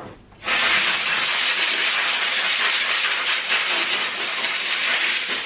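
Compressed-air blow gun on a wall-mounted air hose reel letting out a continuous loud hiss of air, starting suddenly about half a second in.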